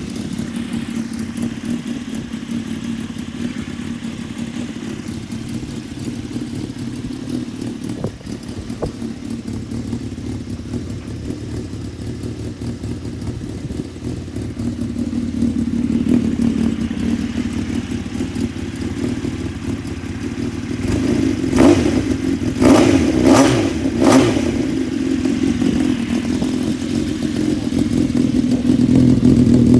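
Honda CBX550F air-cooled inline-four engine running steadily after its tappets (valve clearances) were adjusted to cure an abnormal engine noise. It swells a little past the middle, and about two-thirds of the way through there are four short, sharp, loud bursts.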